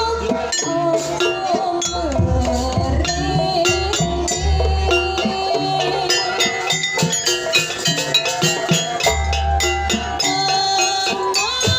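Traditional East Javanese dance music played live: a bending, sustained melody over busy percussion strikes and repeated low bass notes, with a steady beat.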